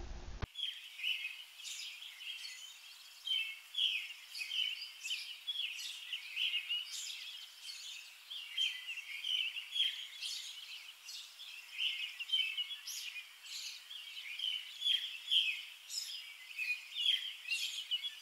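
Birds chirping: a dense run of quick, irregular short calls that starts abruptly about half a second in.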